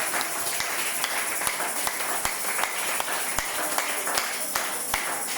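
Congregation clapping and applauding, a dense patter of many hands with sharper individual claps standing out.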